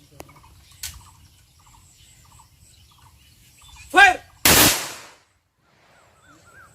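A loud shouted drill command, then a single sharp rifle volley that dies away over about half a second: a ceremonial gun salute for a soldier.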